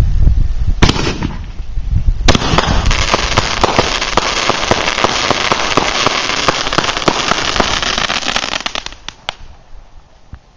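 Aerial firework going off: a deep thump, a sharp bang about a second in, then a louder bang followed by several seconds of dense, rapid crackling from gold crackle stars, dying away with a last pop near the end.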